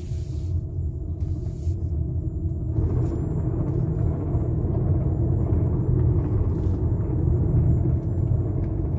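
Hyundai Santa Fe 4WD driving on the road with a steady low rumble from under the chassis, likened to something grinding, growing broader and a little louder about three seconds in as the car speeds up. The cause of the under-chassis noise is not yet known.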